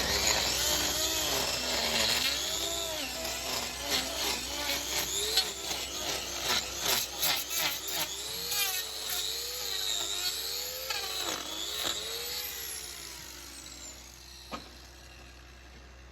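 A power tool working on a cow's hoof, its pitch rising and falling as it bites in and eases off, with scraping clicks. It dies away about 13 seconds in.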